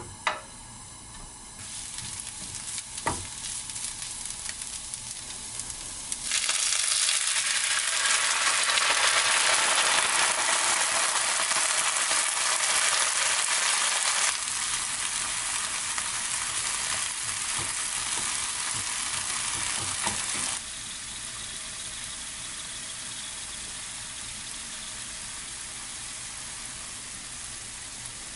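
Dried radish greens sizzling in a hot nonstick frying pan while being stirred with a wooden spatula, with a couple of spatula knocks early on. About six seconds in the sizzle jumps sharply louder as anchovy-kelp stock hits the hot pan, then eases in two steps to a softer bubbling hiss.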